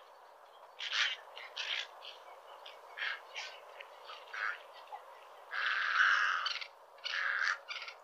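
Cattle egret calling: a run of about ten short, harsh, raspy calls at uneven intervals, with one longer call lasting about a second just past the halfway point.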